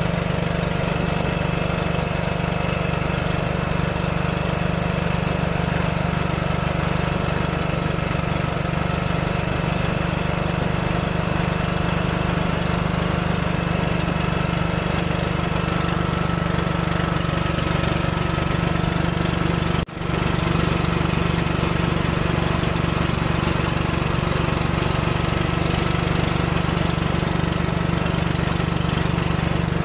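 Small boat engine running steadily as it drives a narrow river boat along, heard from on board. The sound drops out very briefly about two-thirds of the way through, then carries on unchanged.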